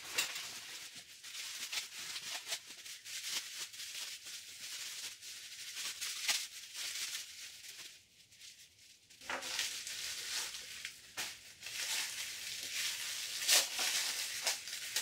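Plastic packaging wrap crinkling and rustling as it is pulled off a doll by hand, in irregular bursts, with a short lull about eight seconds in.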